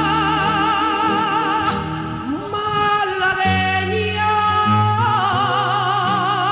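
Music: a singer holding long notes with a wide vibrato over steady lower accompanying notes.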